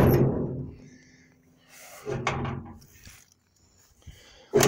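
The steel alligator hood of a 1957 Dodge D200 pickup being pushed down and slammed shut: a loud metal bang that rings on for about a second, a softer thump about two seconds in, and a second loud ringing bang near the end. The hood is stiff and hard to close.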